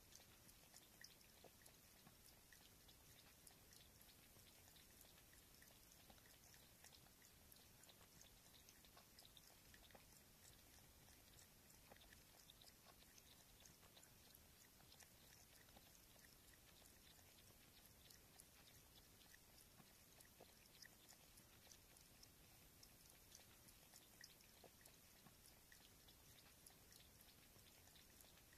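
Tabby cat lapping water from a stainless steel bowl: a steady run of faint, quick wet clicks from its tongue, the "chat-chat-chat" drinking sound.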